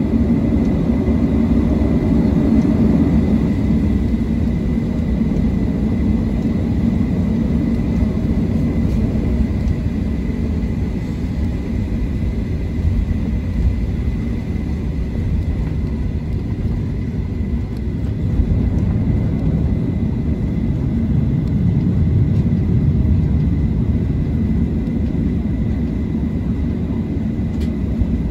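Boeing 737-700 cabin noise while taxiing: the CFM56-7B engines run at low taxi thrust, a steady low rumble with a faint steady high whine, heard from a seat over the wing.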